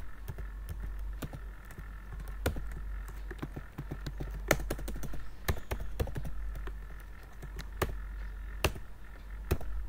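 Computer keyboard keys pressed in short, irregular runs of clicks, with a few harder strokes standing out, over a steady low hum. These are window-manager shortcut keys being hit to switch and move tiled windows.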